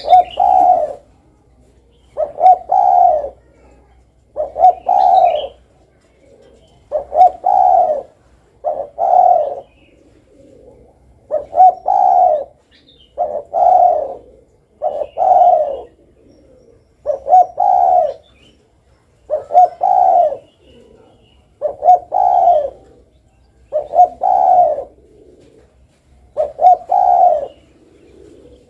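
Spotted dove (derkuku) cooing: about a dozen repeated call phrases, roughly one every two seconds, each a short note followed by longer, deeper coos.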